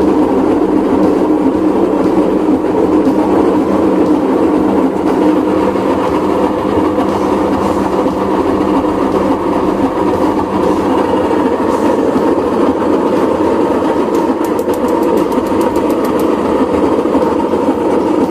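Washing machine running, a loud, steady mechanical whir with a constant hum.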